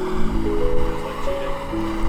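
Background music: a melody of held notes that steps upward and then back down.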